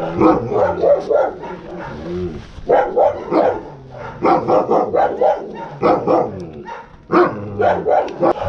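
Central Asian Shepherd Dog (Alabai) barking in several quick volleys of about three or four barks a second, with short pauses between the volleys.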